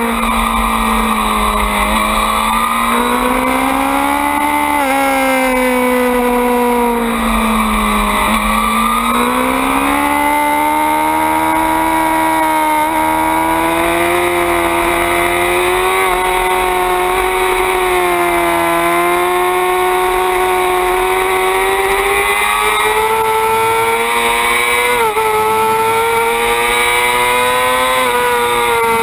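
Suzuki GSX-R600 race bike's inline-four engine running hard on track, its pitch dropping and climbing twice in the first nine seconds as the bike brakes and accelerates, then rising slowly and steadily, with wind rumble underneath.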